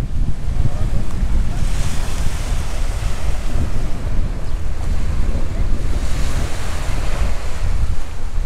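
Sea waves washing onto a beach of rhodolith gravel, with the surf hiss swelling about two seconds in and again about six seconds in. Heavy wind rumble on the microphone runs underneath.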